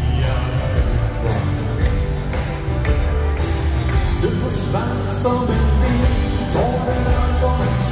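Live danseband music from a band on stage: drums and bass keeping a steady beat under the melody, with singing.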